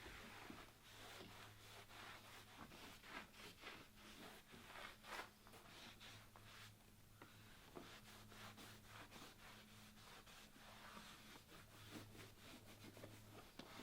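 Faint, irregular rubbing and scrubbing strokes of cleaning by hand over a low steady hum.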